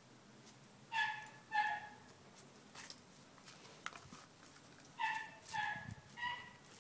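Small dog giving short, high-pitched yips or whines while it sniffs and noses at the ground: two about a second in and three more near the end, with faint scratchy sounds in between.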